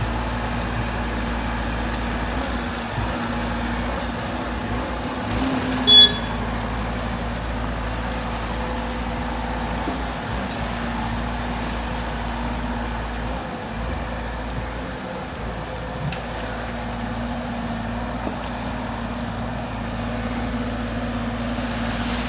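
Amphibious excavator's engine running steadily while it works, a constant hum. About six seconds in, one short, loud clank with a ringing note.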